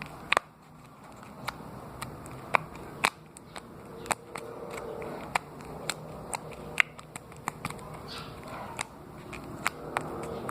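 Homemade slime being squeezed and stretched by hand, making irregular small wet clicks and pops, about two a second.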